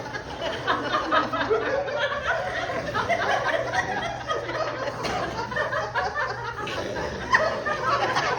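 A group of older women laughing together on purpose in a laughter yoga exercise, many voices overlapping in short giggles and chuckles. A steady low hum runs underneath.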